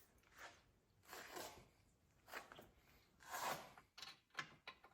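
Faint handling noise of the new wheel hub and its parts: a few soft scrapes about a second apart, then several light clicks near the end.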